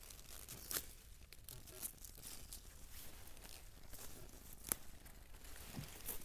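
Rustling of leafy plants with a few sharp snaps, the loudest about two-thirds of the way through, as wild garlic flower stalks are picked by hand.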